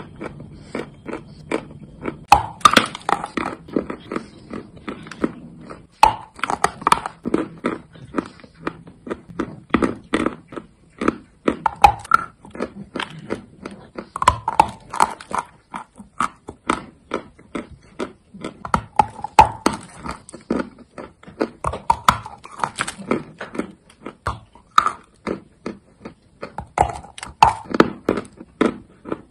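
Chalk being bitten and chewed close to the microphone: dense, irregular crunches throughout.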